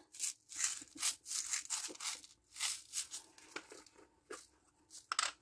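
A small plastic container of gold sugar sprinkles being handled, the sprinkles shifting and rattling against the plastic in short rustles, two or three a second, thinning out near the end.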